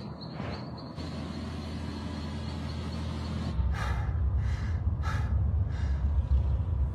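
Car engine and road noise heard from inside the cabin: a steady low drone that gets louder about halfway through. Four short breathy puffs follow near the end.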